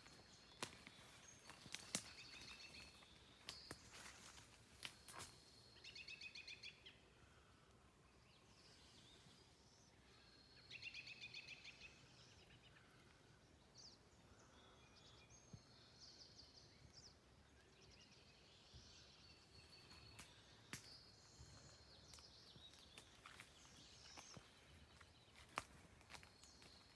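Faint birdsong of a few rapid trilled phrases over quiet outdoor ambience, with scattered soft footstep crunches on a wood-chip path.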